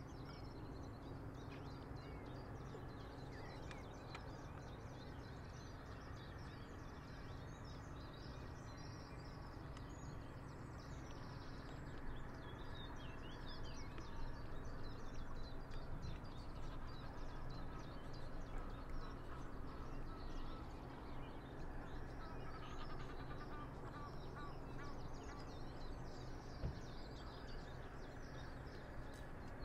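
Outdoor river ambience at a breakwater: a steady low rush of water and light breeze, with small birds chirping on and off throughout.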